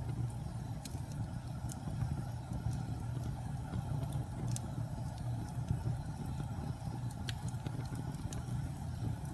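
Wood fire burning with a steady low rumble and scattered sharp crackles and pops, a few seconds apart.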